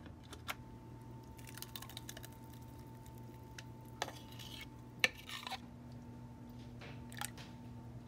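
Kitchenware handling as a thick blended sauce is scraped from a plastic food-processor bowl into a ceramic bowl: scattered soft clinks and knocks with wet squishing. The sharpest knock comes about five seconds in, over a faint steady hum.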